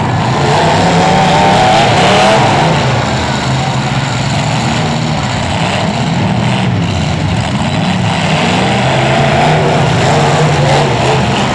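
Several demolition derby cars' engines running loud together, revving unevenly so that their overlapping pitches rise and fall.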